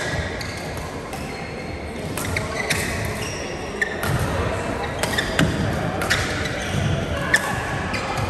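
Badminton rally play in a sports hall: rackets striking the shuttlecock with sharp cracks, one every second or so. Short high shoe squeaks on the court floor and a low murmur of voices run underneath.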